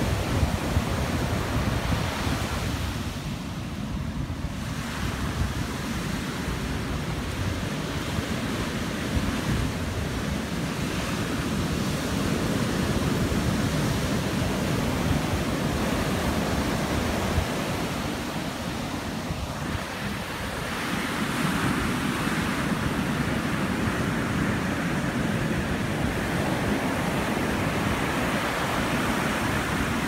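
Rough, wind-lashed surf crashing steadily on a sandy beach, with strong wind buffeting the microphone. The sound eases briefly twice, about four seconds in and again near the middle.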